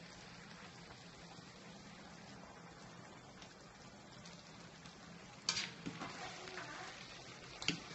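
Thick turkey and tomato sauce simmering in a stainless steel pan on a gas burner, a faint steady bubbling hiss. About five and a half seconds in, a metal spatula scrapes through the sauce against the pan as it is stirred, and a sharp knock comes near the end.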